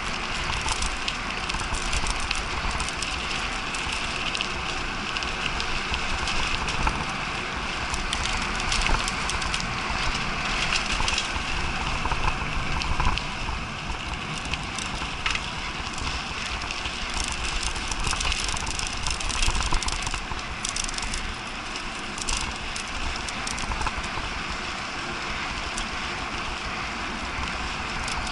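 Mountain bike ridden at speed along a dirt path: steady crunching tyre noise with a continuous rattle and many small clicks and knocks as it goes over bumps.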